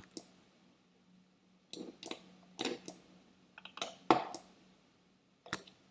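Computer mouse and keyboard clicking, about a dozen short clicks in irregular clusters, over a faint steady low hum.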